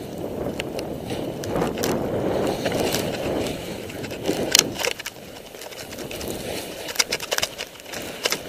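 Rushing scrape of a rider's edges sliding down a steep snow face, swelling and easing through the turns, with a few sharp clicks and knocks on top, the loudest about four and a half seconds in.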